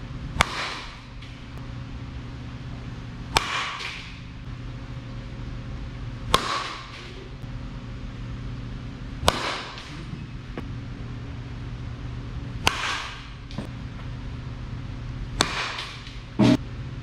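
Softball bat striking pitched softballs during batting practice, six sharp cracks about three seconds apart, each with a short echo off the building. Near the end comes one louder, longer knock, with a steady low hum underneath throughout.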